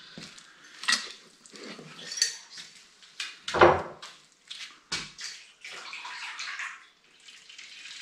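Plastic containers knocking and clattering, with splashing, as soaked dry beans are tipped into a jug of whey. There are several separate knocks, then a short stretch of splashing about six seconds in.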